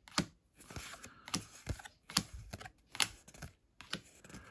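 Pokémon trading cards being flipped through one by one in the hands, card sliding and snapping against card: irregular light clicks, two or three a second, with soft sliding hiss between.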